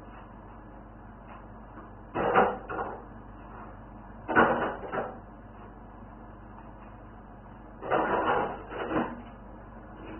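Three short bumps, each followed by a brief rattle, a couple of seconds apart, over a steady low hum.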